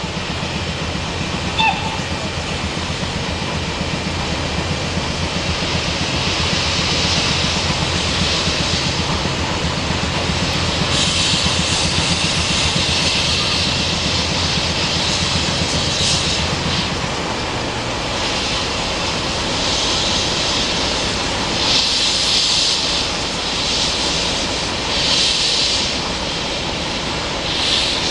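Steam locomotive working, a steady low rumble under a hiss of steam. The hiss swells and ebbs in surges, and the rumble fades out about two-thirds of the way through.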